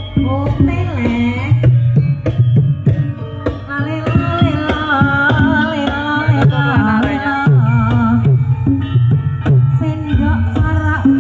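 Recorded music played loud through a ground-stacked PA of line-array boxes over 18-inch subwoofers. A wavering melody runs over steady drum hits and a heavy bass line.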